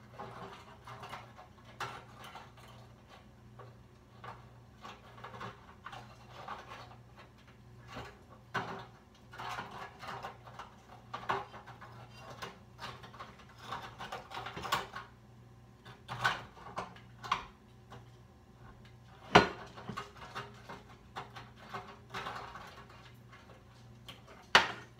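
Kitchen clatter: scattered clicks and knocks of metal tongs against a plate and a deep fryer as fried chicken is lifted out, over a steady low hum. Two sharper knocks stand out in the second half.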